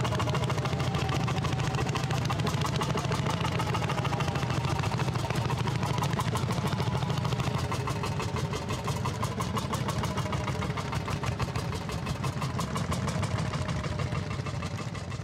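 An engine idling steadily, with a fast, even mechanical clatter.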